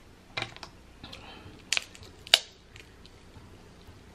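Snow crab leg shells cracking and snapping as they are broken apart by hand: a few sharp cracks, the loudest a little past halfway.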